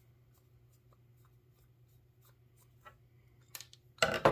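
Faint scratchy ticks of a screwdriver working the small flathead screws on a Briggs & Stratton carburetor's cover plate, then a brief, loud clatter of small metal parts near the end.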